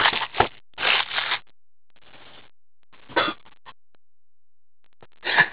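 Cardboard trading-card hobby box being handled, rustling and scraping in short bursts with quiet gaps between.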